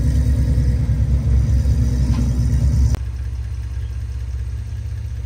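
Off-road pickup's engine running at low revs on a rock-crawling trail, a steady low rumble with an even beat. It becomes quieter and settles to an idle about three seconds in.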